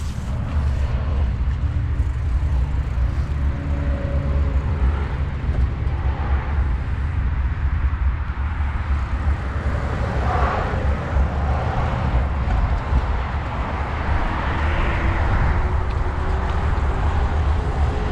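Steady low wind rumble on the microphone, as from riding a bike along a paved greenway, with a faint hum of tones under it.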